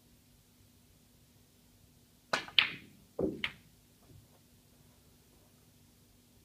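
Snooker cue striking the cue ball a little over two seconds in, followed at once by the loud click of the cue ball hitting the blue. About half a second later come a thud and a click as the blue drops into the pocket.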